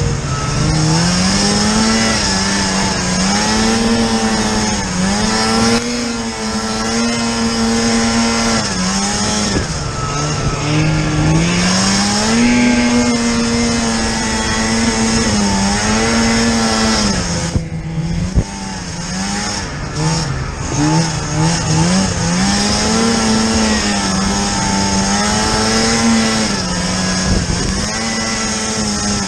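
Snowmobile engine revving up and down as the throttle is worked, its pitch climbing and falling repeatedly, with a brief drop in power about eighteen seconds in.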